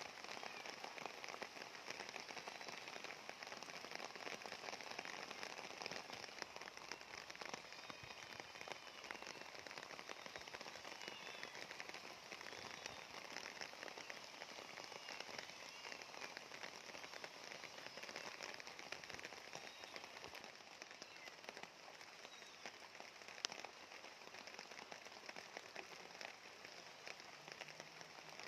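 Steady rain falling, a continuous hiss made of many small drop impacts, with faint short high calls in places and one sharp tick a little past two-thirds of the way through.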